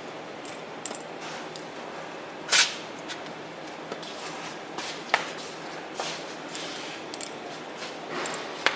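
Scattered sharp clicks and knocks of metal roller parts being handled during hand assembly, the loudest about two and a half seconds in and two more near five seconds and near the end, over a steady background hiss.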